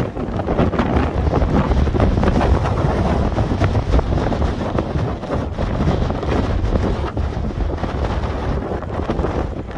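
Strong wind buffeting the microphone: a gusty, rumbling roar that rises and falls.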